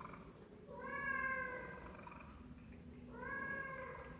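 A domestic cat meowing twice. Each meow lasts about a second, and the second comes about two seconds after the first.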